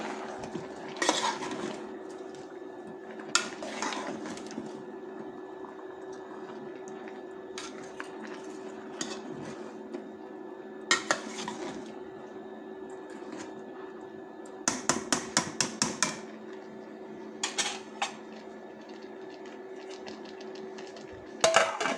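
Metal spoon stirring potatoes and greens in an aluminium pot, scraping and knocking against the pot at irregular moments, with a quick run of taps about fifteen seconds in. A steady hum runs underneath.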